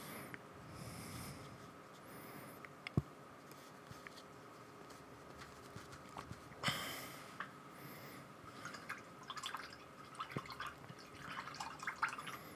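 Faint sounds of painting by hand: a small paintbrush dabbing on paper, with one sharp click about three seconds in, a short scratchy brush-like burst around the middle, and a run of small ticks and taps near the end.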